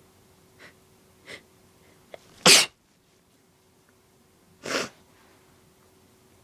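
A woman's allergy sneezes: a loud sneeze about two and a half seconds in, then a second, softer sneeze about two seconds later.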